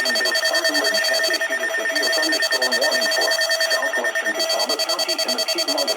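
Electronic emergency alert tone: a steady high beep pulsing rapidly and evenly. It cuts off suddenly at the end.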